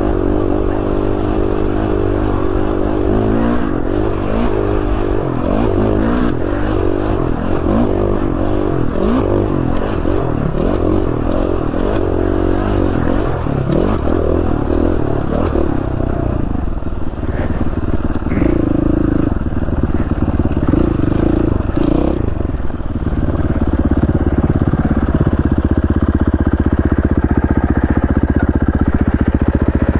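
KTM 350 XC-F four-stroke single-cylinder dirt bike engine heard from the rider's seat, revving up and down repeatedly while riding, then settling to a steady note in the last several seconds as the bike comes to a stop.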